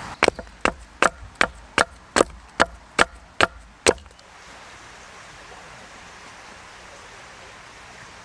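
About ten quick, evenly spaced chopping blows into wood with a hand tool, roughly two and a half a second, stopping about four seconds in. A steady faint hiss follows.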